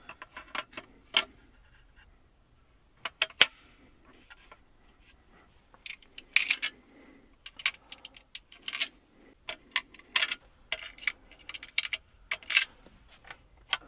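Irregular sharp clicks and short rattles of plastic and sheet metal as a Ford Sync APIM module is handled and fitted onto the back of the dashboard LCD screen, several clustered clicks near the middle and toward the end.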